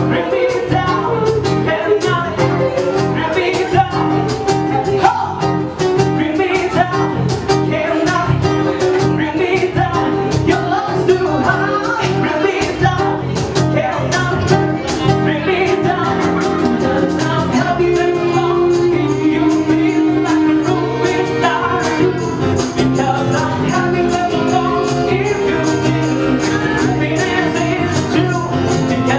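Live acoustic band playing a song with a steady beat: acoustic guitar, bass guitar and cajon, with a man and a woman singing into microphones.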